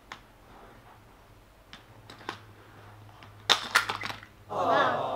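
Toy cars and plastic track pieces of a Hot Wheels playset clicking, with a burst of loud clattering about three and a half seconds in. Near the end a child's voice comes in with a wavering vocal sound.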